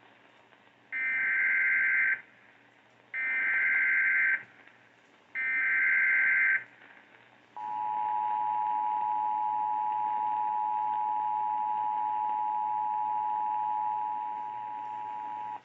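Emergency Alert System activation received over the radio: three one-second bursts of SAME data tones, a second apart, then the steady two-tone attention signal held for about eight seconds. This is the header of an incoming severe thunderstorm warning.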